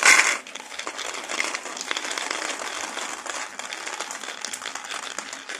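Dried fava beans rattling and clicking as a hand scoops them from a bowl and pushes them through the neck of a plastic bottle, with a louder rattle right at the start.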